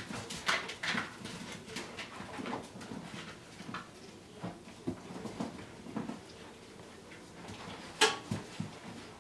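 A litter of young puppies playing and wrestling: small whimpers and squeaks with scattered short scuffling and tapping noises from their paws, and one louder sharp sound about eight seconds in.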